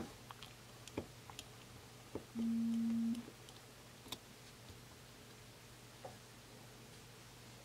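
Faint small clicks of a size 000 Phillips screwdriver working a tiny screw out of a Samsung Galaxy S3's logic board. The loudest sound is a short, steady hum of about a second, a little over two seconds in.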